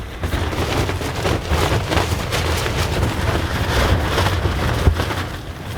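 Strong storm wind buffeting a tent: the fabric is flapping and crackling over a heavy low rumble of wind on the microphone.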